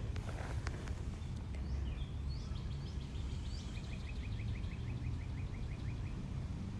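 Outdoor ambience: a steady low rumble with birds calling over it, a few rising calls early on giving way to a quick run of short, evenly spaced chirps, about seven a second, in the second half.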